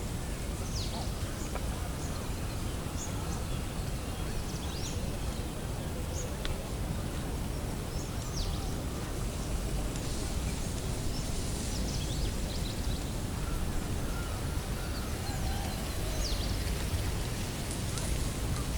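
Birds calling with short, high, falling chirps scattered throughout, over a steady low outdoor rumble.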